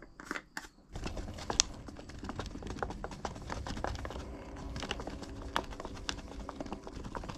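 A stir stick scraping and clicking against the inside of a plastic cup, mixing epoxy resin with black metal-flake powder. The clicks come thick and irregular from about a second in, over a low rumble.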